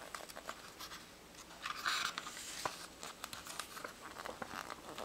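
Pages of a small book being handled and turned: light paper crinkles and finger taps, with a brief swish of the turning page about two seconds in.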